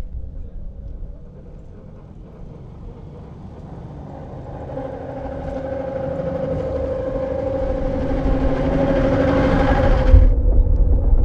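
Vintage electric rack-railway train from 1924 approaching and growing steadily louder, its motors giving a steady hum and whine over a rushing running noise. The higher part cuts off suddenly near the end, leaving a low rumble.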